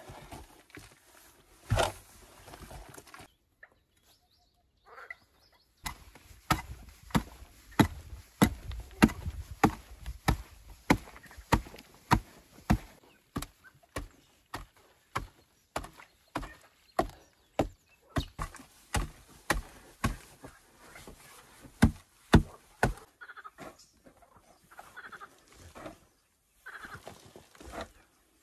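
A small hand digging tool chopping into packed earth and roots, about two sharp strikes a second. The strokes start after a short pause and stop a few seconds before the end.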